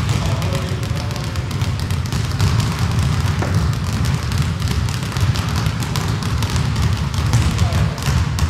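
Several basketballs dribbled at once on a hardwood gym floor: a rapid, continuous patter of overlapping bounces, with players working two balls each.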